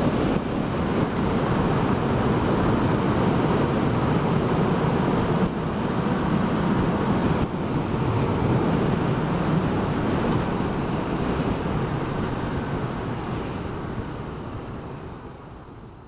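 Wind rushing over the microphone together with road and engine noise from a Yamaha XSR700 motorcycle being ridden, fading out over the last few seconds.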